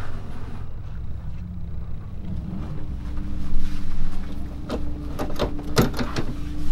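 Low rumble with a steady engine drone that comes in about two seconds in, and several sharp clicks and knocks in the second half.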